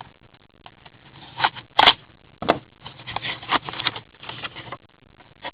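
Trading cards and their packaging being handled: a few sharp clicks about a second and a half to two and a half seconds in, then a run of scraping and rustling.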